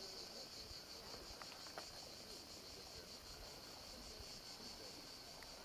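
Faint, steady high-pitched chorus of insects: a shrill buzz with a fast, even pulse.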